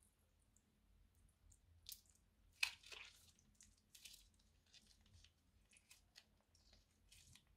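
Slime squelching as it is squeezed out of a plastic piping bag: a scatter of short, faint squishes and crackles, the loudest about two and a half seconds in. The plastic bag crinkles as it is crumpled near the end.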